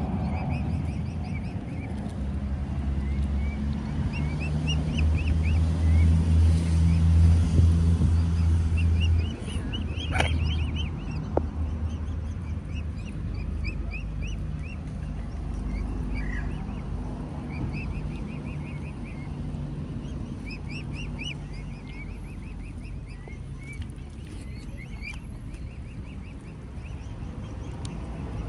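Mute swan cygnets peeping: repeated bursts of short, high-pitched calls throughout. Under them runs a low background rumble that swells for a few seconds near the start and then fades.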